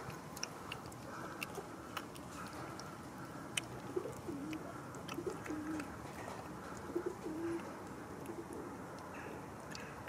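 A cat eating wet food from a plastic tub, with scattered short clicks of chewing and lapping. Low cooing calls come in about four seconds in and again about seven seconds in.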